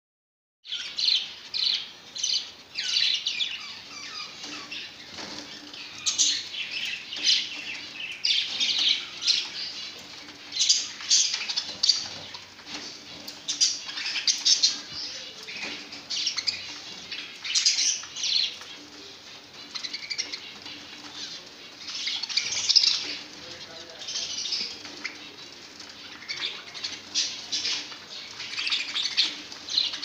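A cage of budgerigars chirping and chattering without pause, in quick irregular bursts, with wings fluttering among them.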